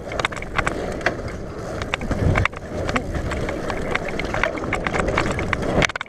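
Mountain bike rolling fast down a dirt trail: tyre noise on dirt with many irregular rattles and clicks from the bike, and a heavy thump about two seconds in.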